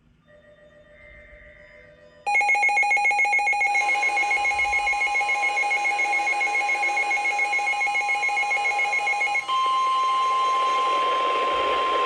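A NOAA weather radio receiver's alert alarm going off for an incoming warning: rapid pulsing electronic beeps start about two seconds in. The National Weather Service's steady 1050 Hz warning alert tone comes in under the beeps and holds on alone after the beeping stops, near the end.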